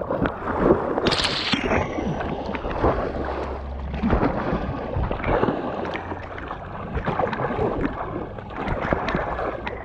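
Paddle strokes and water splashing and gurgling around a Pyranha Ozone whitewater kayak as it is worked up onto its stern, in irregular splashes with one sharp splash about a second in. Wind buffets the microphone.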